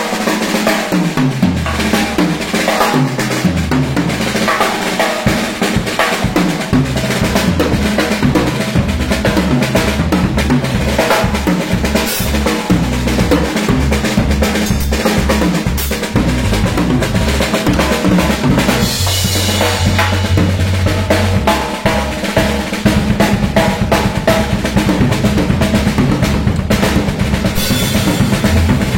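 Music with a drum kit playing a dense, steady beat, over low notes that step up and down.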